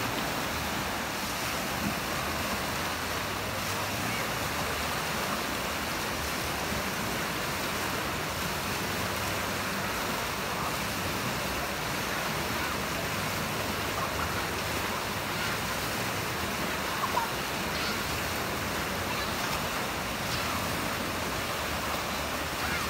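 Wave pool surf: a steady rush of artificial waves breaking and washing through shallow water.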